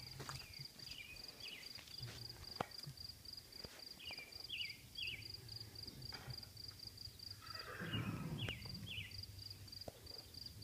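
Faint outdoor ambience with a cricket chirping steadily, about four chirps a second. Short falling chirps sound now and then, and a brief rustle comes about eight seconds in.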